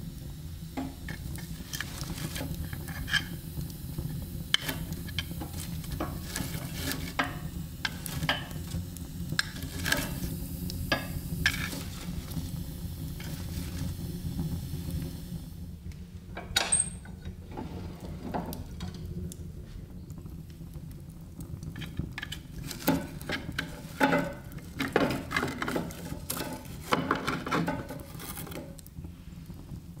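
Wood fire crackling in a small cast-iron stove: irregular pops and snaps over a low steady rumble. A little past halfway the iron stove door latch clicks once with a short metallic ring, and the crackling picks up again after it.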